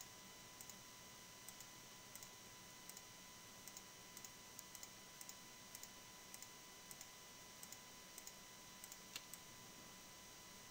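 Faint clicks of a computer mouse, often in quick pairs, coming every half second or so as mesh faces are picked one at a time.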